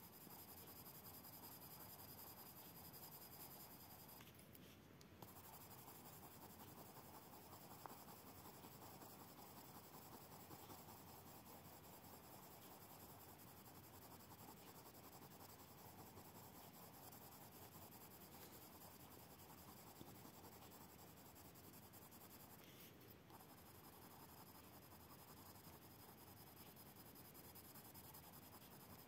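Faint, steady scratchy rubbing of a waxy Caran d'Ache blender stick worked over a layer of colored pencil on paper, pausing briefly twice: the wax is pressing the pigment down to blend it.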